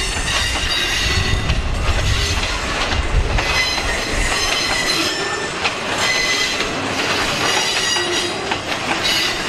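Pulpwood-loaded freight cars rolling past at close range: a steady low rumble of wheels on rail, with thin high wheel squeals that come and go and some clacking over rail joints.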